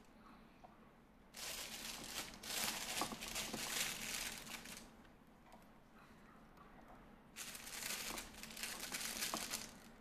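Disposable plastic piping bag crinkling as it is handled and filled with cream cheese, in two bursts of a few seconds each: one starting about a second and a half in, the other near the end.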